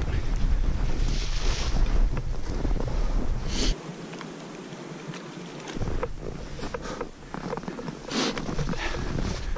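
Wind buffeting a handheld action camera's microphone with a low rumble, which cuts off abruptly about four seconds in. After that come a runner's footsteps crunching in deep snow and his breathing.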